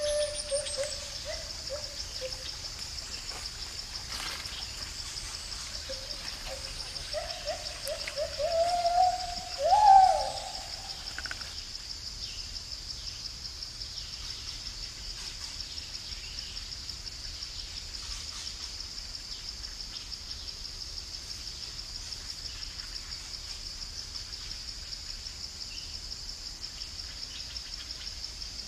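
Gibbon calling: a few hoots near the start, then a run of notes that step higher and higher, reaching the loudest call about ten seconds in before stopping. Under it, and on after the calls end, a steady, finely pulsing high insect drone.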